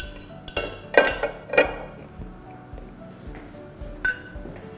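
A utensil clinks and scrapes against a dish as chopped salad vegetables are pushed off it into a glass bowl. There are several sharp knocks in the first two seconds and one more near the end, over quiet background music.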